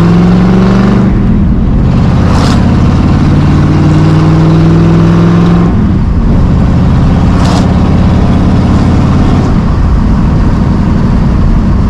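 1965 Ford Mustang Fastback's engine accelerating, heard from inside the cabin: the pitch rises, breaks off briefly about a second in at a gear change, and climbs again in a longer pull. Near the halfway point it drops back to a steady cruise.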